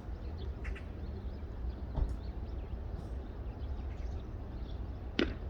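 Wind rumbling on the microphone at a baseball game, with a faint knock about two seconds in and a loud, sharp crack of a baseball making contact near the end.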